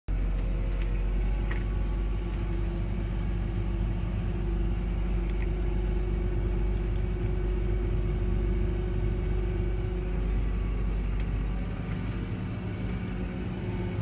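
Fendt 716 Vario tractor's six-cylinder diesel engine running steadily, heard from inside the cab: a low drone with a steady hum above it, easing slightly near the end.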